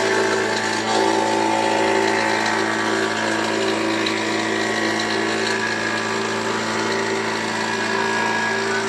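A woodworking power tool's motor running steadily, a constant hum with no change in speed.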